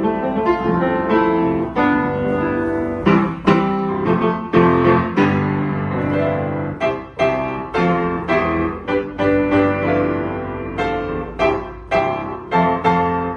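Yamaha U30 upright piano being played: a flowing piece of chords and melody notes, each struck sharply and ringing on. The instrument has been regulated and voiced, its hammers filed.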